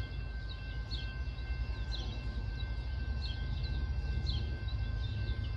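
Low, steady rumble of a distant locomotive, growing slowly louder, with a bird chirping repeatedly over it in short falling notes.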